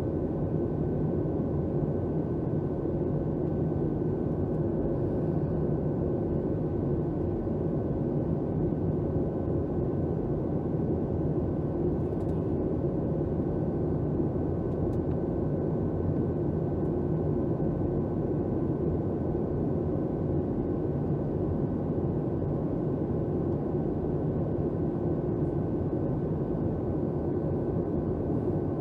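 Steady cabin noise of a Boeing 737-700 in flight: an even rumble of airflow and its CFM56-7B engines, with a faint steady whine over it.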